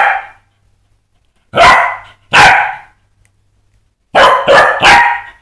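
Pembroke Welsh corgi barking excitedly at a laser pointer dot: two loud barks about a second and a half in, then a quick run of barks near the end.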